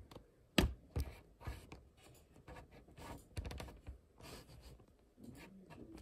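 Handling noise from a camera being moved about and set down: a few knocks, the clearest within the first second and a cluster about three and a half seconds in, with soft rubbing and scraping between them.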